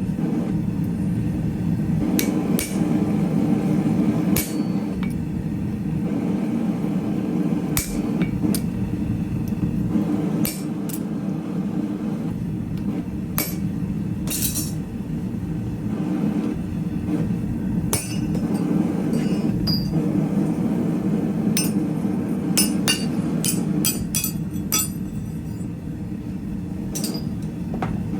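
Hammer blows on steel stock at the anvil during hand forging: irregular, spaced-out strikes with a short metallic ring, most closely bunched near the end, over a steady low roar.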